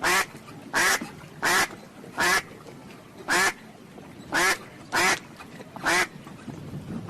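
A duck quacking: eight loud, harsh single quacks, spaced about half a second to a second apart.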